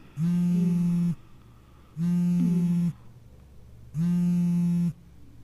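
Mobile phone buzzing for an incoming call: a low buzzy tone in even pulses, about one second on and one second off, three times.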